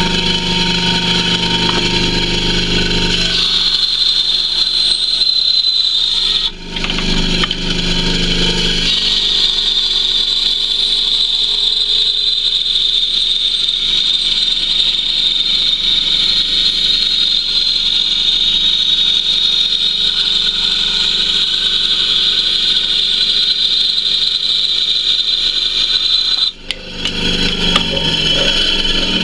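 Bandsaw running and ripping through a laminated wood blank: a steady high whine with the noise of the blade cutting. It breaks briefly about six seconds in and cuts off sharply near the end.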